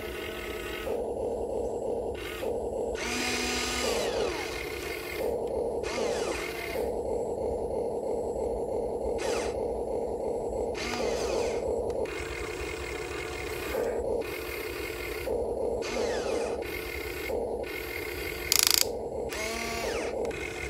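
Small electric motors of a radio-controlled excavator whining in on-and-off stretches of a second or two, now and then rising in pitch, with one sharp click near the end.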